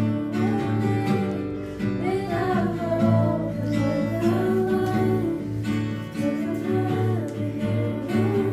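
Music: a voice singing over strummed acoustic guitar.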